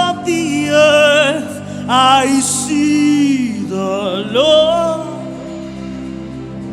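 Gospel worship music: a solo voice sings a few drawn-out, wavering phrases over sustained keyboard chords. The voice drops out about five seconds in, leaving the chords held.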